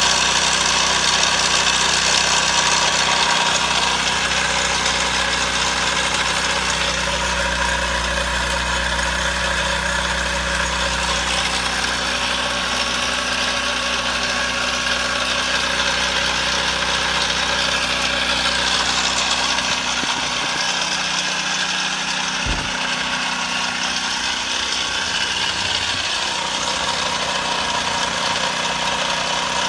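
Small propane-fuelled engine fitted with a GEET fuel processor idling steadily.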